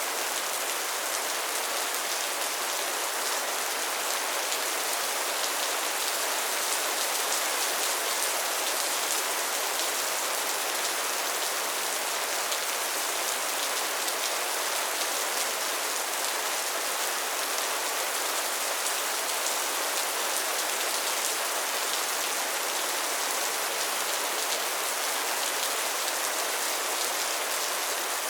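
Steady rain falling, an even hiss of many fine drops with no thunder.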